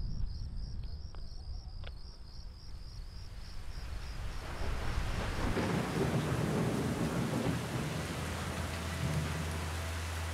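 Crickets chirping in a fast steady pulse for the first few seconds, fading as rain builds to a steady downpour. A low rumble of thunder rolls through the middle, and a low steady drone comes in near the end.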